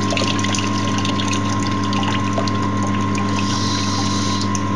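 Water draining out of a tank through its outlet and splashing, with many small ticks of drops, over a steady machine hum.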